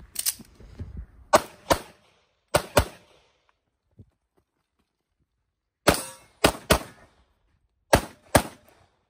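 Handgun shots fired rapidly in quick pairs, about ten shots in all, with a pause of roughly three seconds midway before a string of three and a final pair.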